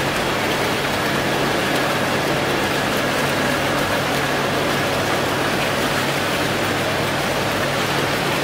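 Bubbler jet fountain: a column of water gushing up and splashing steadily into its pool, with a steady low hum underneath.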